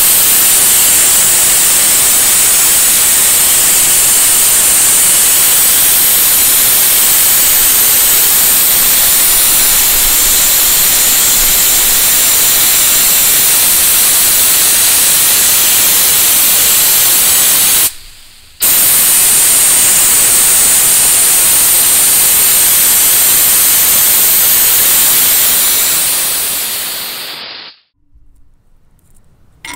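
Compressed air jetting from a hand-held nozzle onto a bare steel motorcycle frame: a loud, steady hiss that breaks off briefly about 18 seconds in, then resumes and stops a couple of seconds before the end.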